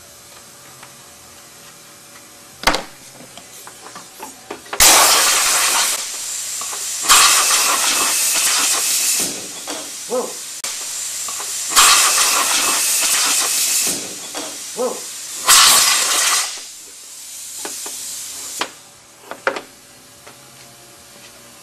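Bench belt sander starting about five seconds in and running. There are four louder stretches of one to two seconds each as a clear plastic part is pressed to the belt. It runs down and stops near the end, and a single sharp click comes a couple of seconds before it starts.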